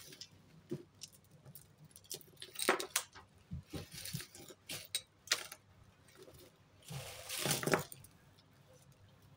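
Metal and bead costume jewellery clinking and jangling as hands rummage through a pile, in scattered short clatters with a longer stretch of jangling about seven seconds in.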